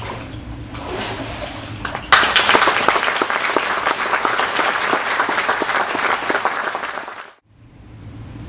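Congregation applauding a baptism. The clapping breaks out suddenly about two seconds in, holds steady for about five seconds, then cuts off abruptly.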